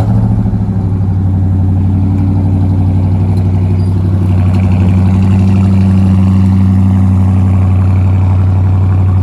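2017 Dodge Charger Daytona's V8 engine on its stock exhaust, cold-started: it fires up suddenly right at the start and settles into a loud, steady idle.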